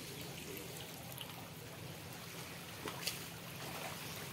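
Faint trickling of running water into a pond, over a low steady hum, with a couple of faint clicks about three seconds in.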